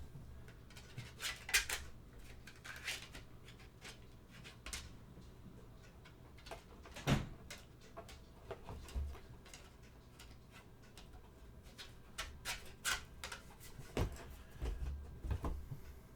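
Scattered light clicks and knocks of small plastic objects being handled, with one louder knock about seven seconds in, over a faint steady low hum.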